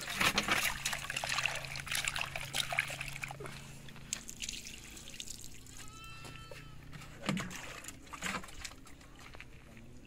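Water poured from a plastic jug into a metal pot of cut potatoes, hissing and splashing for a few seconds. The pot is then swirled and the rinse water is tipped out, with a couple of splashes onto the ground near the end.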